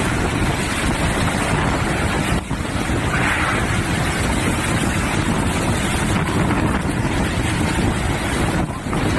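Storm-force wind and heavy rain, a loud continuous rush buffeting the microphone, easing briefly about two and a half seconds in and again near the end.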